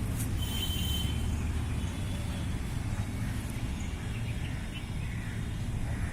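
Steady low outdoor rumble, with a couple of faint high chirps near the start.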